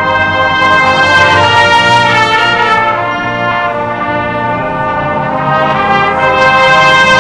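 Marching brass line of bell-front horns playing loud held chords in full ensemble, growing louder near the end.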